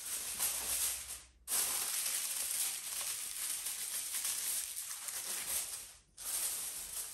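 Aluminium foil crinkling as a sheet is stretched over a baking tray and pressed down around its rim, with two brief breaks, about a second and a half in and near the six-second mark.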